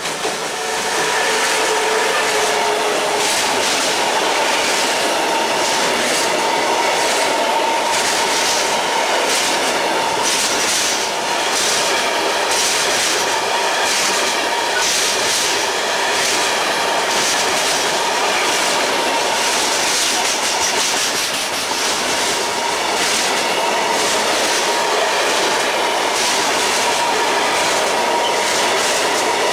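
Intermodal freight train of semitrailers on pocket wagons rolling past close by, hauled by a Bombardier Traxx electric locomotive that passes at the very start. The wagon wheels clatter over the rail joints in repeated clicks, over a steady ringing tone.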